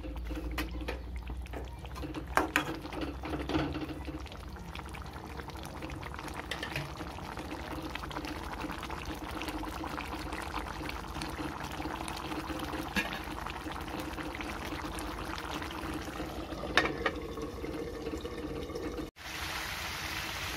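Water poured into a metal kadai of frying pork and potato curry, then the thinned gravy bubbling steadily, with a few sharp knocks of a metal spatula against the pan.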